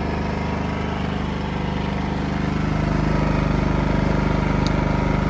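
Wen 56235i four-stroke inverter generator running with no load, a steady engine note that gets a little louder about halfway through. Its crankcase is overfilled with oil, which has the overload light flashing and keeps the eco mode from slowing it down.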